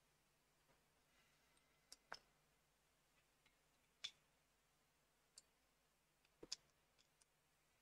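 Small plastic LEGO bricks clicking as they are handled and pressed together: about eight faint, sharp clicks, some single and some in quick pairs, with the clearest near the middle and a double click near the end.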